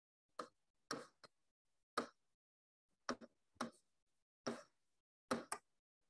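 Chalk writing on a blackboard: about ten short, separate scrapes and taps as words are written, with dead silence between them.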